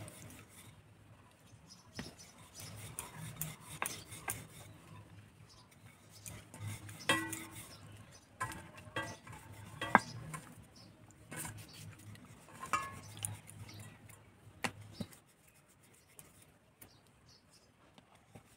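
Wooden rolling pin rolling out dough on a flour-dusted stone board, with irregular knocks and clicks as the pin and board shift; a sharp knock about ten seconds in is the loudest. It goes quieter over the last few seconds.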